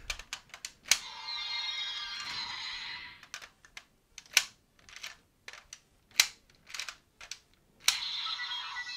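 Sharp plastic clicks of a DX Desire Driver toy belt and its armed Raise Buckle being worked by hand. The belt's speaker plays an electronic sound effect twice: once about a second in, with falling tones lasting about two seconds, and again near the end.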